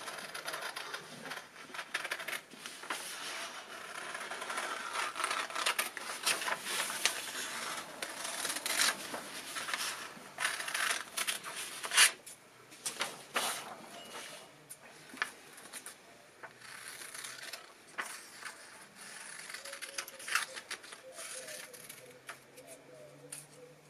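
Scissors cutting through an iron-on transfer paper sheet: a long run of short snips, with the paper rustling as it is turned.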